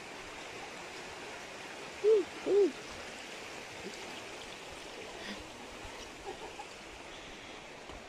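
Two short hooting calls about half a second apart, each rising then falling in pitch, over a steady background rush.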